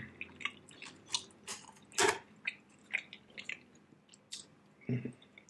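Close-miked chewing of ribeye steak, with wet clicking mouth sounds and lip smacks, one louder smack about two seconds in. A short closed-mouth hum near the end.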